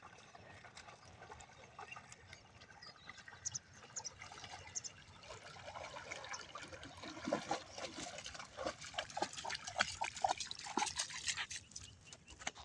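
Faint splashing and trickling water from a German shorthaired pointer swimming with a retrieved duck in its mouth, the splashes growing louder and busier in the second half as it reaches the shallows and wades out onto the bank, then dying down near the end.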